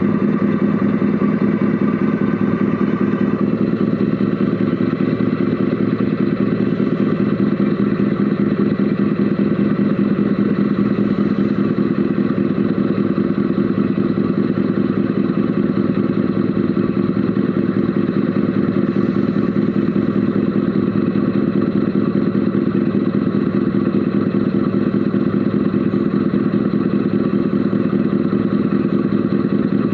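Mercedes Actros SLT RC model truck running, heard from inside its cab: a steady, unchanging engine-like drone with a fast, even pulse.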